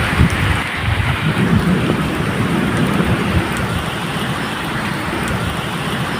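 Steady medium rain with a low rolling rumble of thunder, strongest in the first half and easing afterwards.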